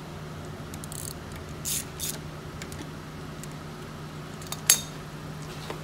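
A handful of sharp metallic clicks and clinks from hand tools on the A/C compressor's pipe fittings, the loudest near the end, over a steady low hum.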